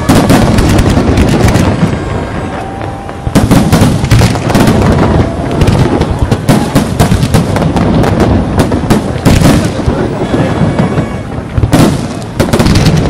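Fireworks display: rapid, overlapping bangs and booms of exploding shells over a continuous low rumble, easing briefly about two seconds in and again near the end.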